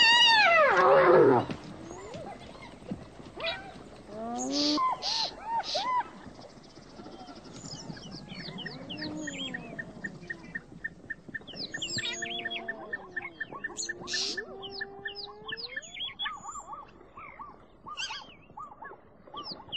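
Wild animal calls and birdsong: a loud call that falls steeply in pitch, then shorter arched calls, followed by many bird chirps and a steady rapid pulsing call.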